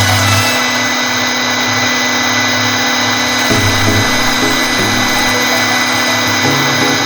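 CNC wood router spindle running steadily with a high whine, with background music over it.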